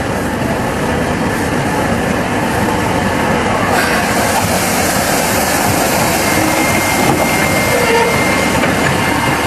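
Train running along the track: a loud, steady rumble and rail noise, with a thin high squeal appearing in the last couple of seconds.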